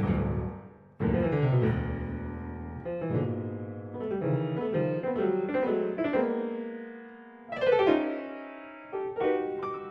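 Solo piano music: unhurried phrases of struck notes and chords that ring and fade, with a brief break about a second in.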